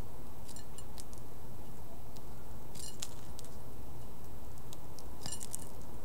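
A small bird pecking seed from a terracotta saucer: scattered sharp little clicks and ticks, in small clusters about 3 seconds in and again near the end, over a steady low rumble.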